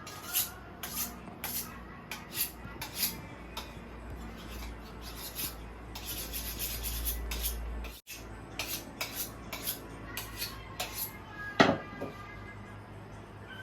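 Kitchen handling sounds: a run of short, quick scraping and rubbing strokes, with a brief steadier rasp, an abrupt break about eight seconds in, and one sharp knock near the end.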